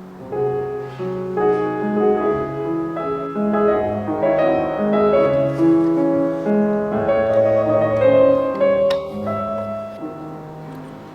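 Background music: piano playing a melody with chords.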